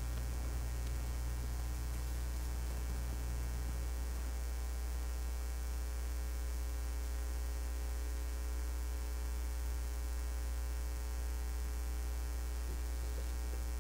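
Steady low electrical mains hum with faint steady tones above it; a slightly higher layer of the hum drops out about four seconds in.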